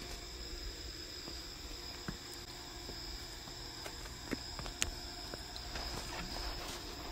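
Night insects, most likely crickets, keeping up a steady high-pitched trill, with a few faint scattered clicks and taps.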